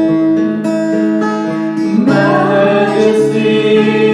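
Worship song music led by strummed acoustic guitar with sustained chords, between sung lines. About halfway through, a voice or new melodic line slides in.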